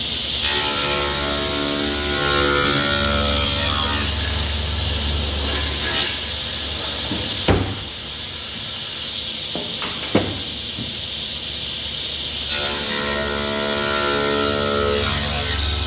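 Woodworking power tool running and cutting wood, loud at the start and again near the end, with a few sharp knocks in the quieter stretch between.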